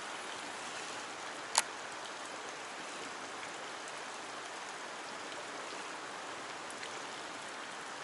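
Steady, even hiss of water at the surface, with one sharp click about a second and a half in.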